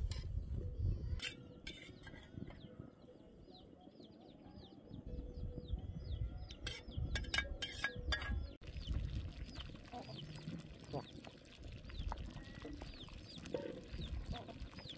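Chickens: short, high, falling peeps repeating many times, with some clucking. A few sharp knocks come in the first half.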